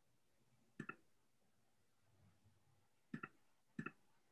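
Faint computer mouse clicks over near silence: three quick double-clicks, one about a second in and two close together near the end, as someone tries to get an unresponsive slideshow to respond.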